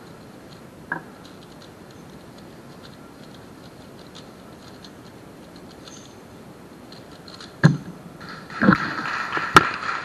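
Valk 3 speedcube being turned at speed in a solve: a dense, fast clatter of plastic layers clicking, starting about eight seconds in just after a thump. Before that there are only faint ticks as the cube is turned over in the hands during inspection.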